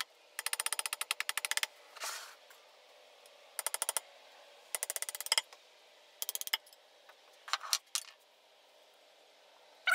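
Short bursts of rapid light tapping, rattling on metal and wood, then a few single knocks: a hammer and a thin rod rapped against a sand-casting flask and its sprue to loosen the fresh aluminum casting before the mold is opened.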